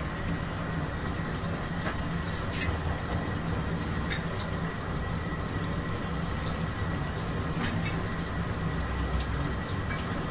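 Mysore bonda batter balls deep-frying in hot oil in a large iron kadai: a steady sizzle and bubble with a few faint ticks, over a low steady hum.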